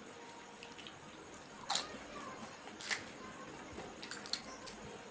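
A person eating pani puri (fuchka): a few short, crisp clicks and cracks of the fried puri shells and mouth sounds, the two loudest just under two seconds and about three seconds in.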